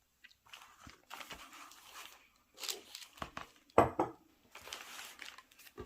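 Thin paper sheets rustling and crinkling as they are handled, in irregular bursts with one sharp crackle a little before the four-second mark.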